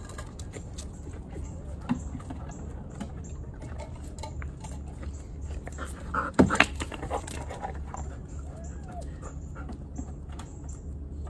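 A dog's brief vocal sound, close up, about six and a half seconds in, over a steady low background hum and a few faint clicks.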